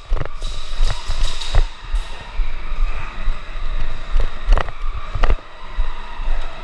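Airsoft guns firing in irregular single sharp cracks, about a dozen spread unevenly, over low thumping of movement on the body-worn camera microphone.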